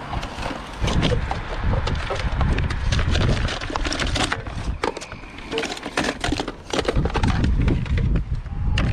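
Irregular clatter and knocks of hard objects being handled and shifted, over low wind rumble on the microphone.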